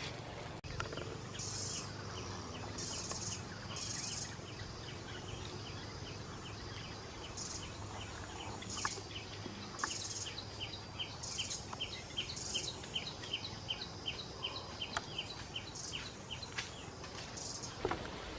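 Outdoor wildlife chirping: a long run of short high chirps, about three a second, with brief higher buzzes every second or two and a few scattered clicks.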